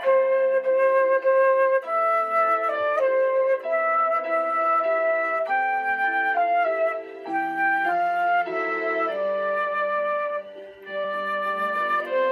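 Electronic keyboard playing a slow melody on a flute voice: held notes stepping up and down over sustained chords.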